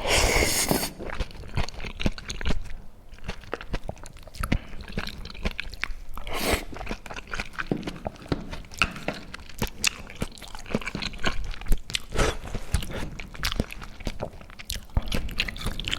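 Close-miked eating: a person chewing and biting, with many short, wet mouth clicks and smacks and a few louder bursts.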